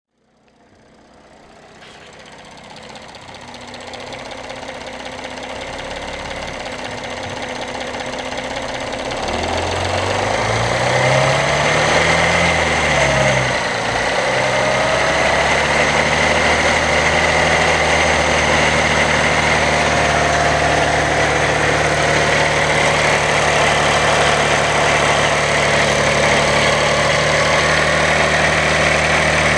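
Audi 3.0 TDI V6 diesel engine running with a rattle that is suspected to come from the timing chain, typical of a clogged or restricted chain tensioner. It swells in over the first ten seconds or so, revs up and drops back about halfway through, then holds a steady speed.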